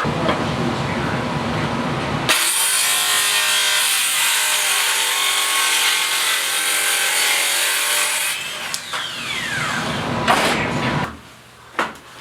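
Electric power saw cutting plywood: a loud, steady cutting noise for several seconds, then the motor winding down with a falling pitch before it stops.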